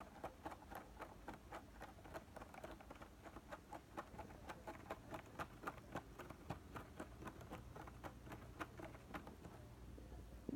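Munchkin kitten scratching its claws on a corrugated-cardboard scratcher: a fast run of faint, scratchy strokes, several a second, that stops about nine seconds in.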